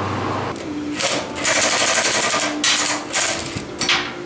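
Cordless impact wrench hammering in several short bursts, working a rusted, stuck bolt loose from a cast-iron exhaust manifold.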